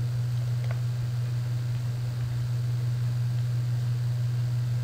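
Steady low electrical hum with a constant hiss, the background noise of the recording, with one faint click about a second in.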